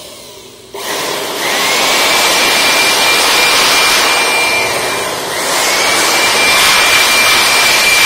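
Handheld electric air blower switched on about a second in, its motor whine rising to a steady high pitch over a loud rush of air. It eases off briefly around five seconds and spins back up. The air is blowing dust out of a smoke detector's mesh cover.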